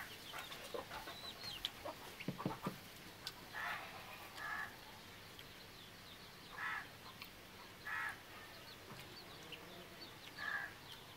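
Chickens clucking in short, separate calls a second or two apart, with a few faint high bird chirps.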